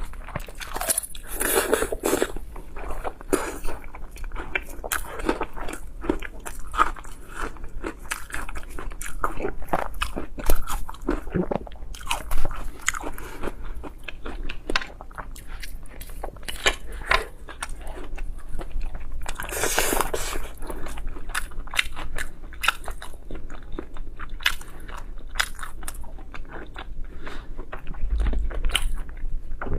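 Close-miked eating: a person biting and chewing crunchy food, a steady run of crisp crunches with fuller bites about a second in and again about twenty seconds in.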